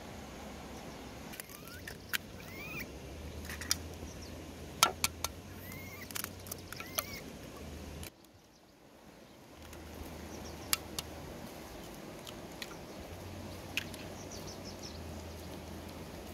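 Baby monkeys scuffling at a wicker basket in grass: scattered sharp clicks and rustles, with a few short squeaks that rise and fall in the first half, over a steady low hum. The sound drops out for about a second around eight seconds in.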